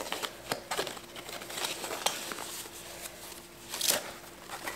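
Tissue paper crinkling and rustling as a crystal glass is unwrapped from it, with the loudest crackle a little before the end.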